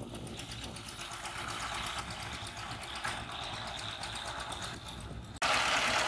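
Single-cylinder diesel engine of a two-wheel power tiller running steadily in a flooded paddy, with an even, rapid chugging beat. It is fairly faint at first, then abruptly much louder and closer about five and a half seconds in.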